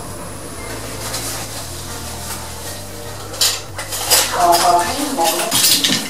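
Lift car running with a steady low hum, then metallic clattering and clinking from about three and a half seconds in.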